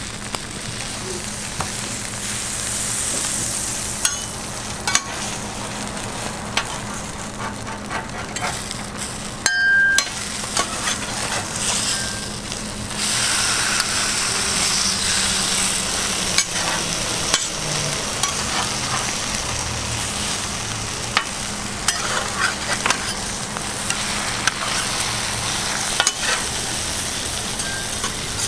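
Egg-and-pizza toast patties frying on a flat-top griddle, sizzling steadily, while a metal spatula scrapes and taps the griddle as it turns them. There is one louder clatter about ten seconds in.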